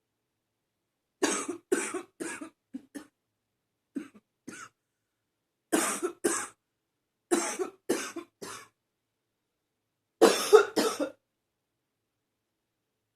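A woman's barking cough in five short fits of two to four coughs each, the last fit the loudest.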